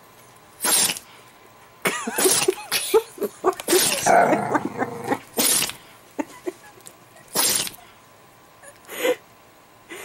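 Italian greyhound sneezing in a series of short, sharp bursts, with a quick cluster of sneezes and snorts in the middle.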